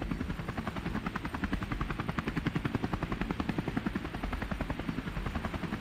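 Helicopter main rotor beating steadily: a rapid, even thumping over a steady low engine hum.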